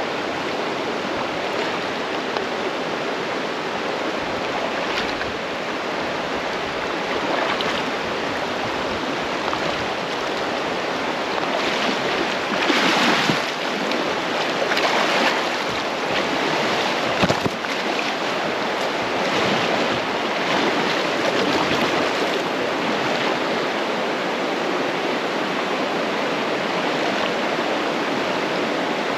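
Swift river water rushing steadily, with a louder swell of splashing a little before halfway and a brief knock soon after.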